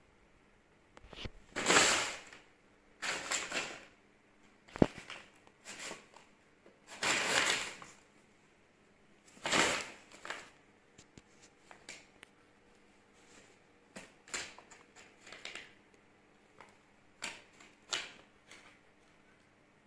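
A kitten moving about inside a brown paper bag, the paper crinkling and rustling in repeated short bursts, with a sharp tap about five seconds in; the bursts get smaller and more scattered in the second half.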